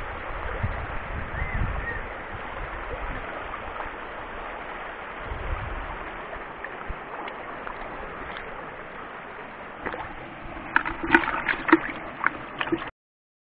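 Mountain stream water rushing steadily. A quick cluster of sharp clicks and knocks comes near the end, about eleven seconds in.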